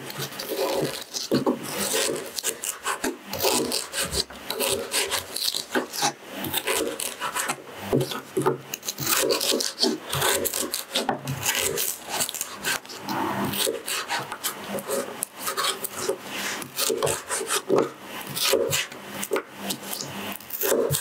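Chef's knife slicing peeled ginger on a cutting board: a run of irregular crisp cuts, each ending in a light knock of the blade on the board.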